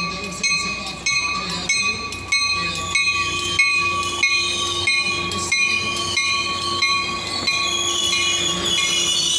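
A train running by, with high, shifting squealing tones and regular clicks about every two-thirds of a second.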